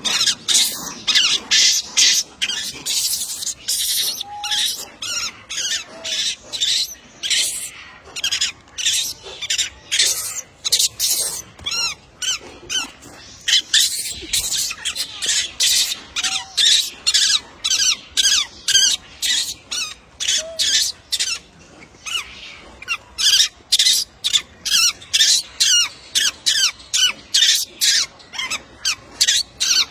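A long run of short, sharp, high-pitched squeaky chirps, about two a second, with a brief pause about three quarters of the way through.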